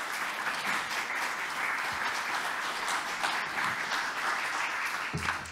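Audience applauding, a dense steady clapping that begins to die away at the very end.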